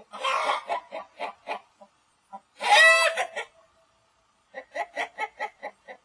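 Chickens clucking: a harsh call at the start, a run of short clucks, then a loud pitched squawk about three seconds in, and a quick series of short clucks near the end.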